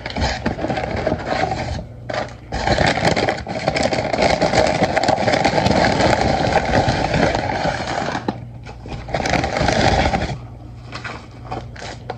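Takeout bag and paper food wrappers rustling and crinkling close up as food is taken out and unwrapped. The sound comes in loud spells, with brief pauses about two seconds in and toward the end.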